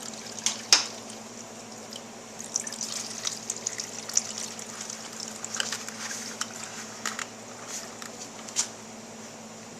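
Engine coolant trickling and spattering from the radiator drain-bolt hole into a drain pan, unevenly. There are a couple of sharp clicks about half a second in.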